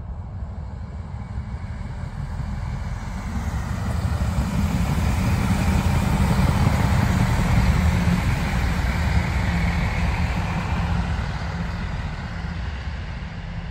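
Three-car Class 166 Thames Turbo diesel multiple unit passing slowly, its underfloor diesel engines and wheels on the rails growing louder as it draws level about six seconds in, then fading as it moves away.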